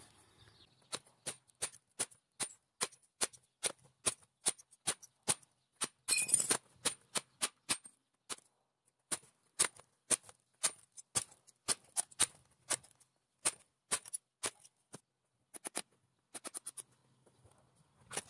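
A long run of sharp knocks, about two or three a second, with a short rough scraping patch about six seconds in and a brief pause around eight seconds.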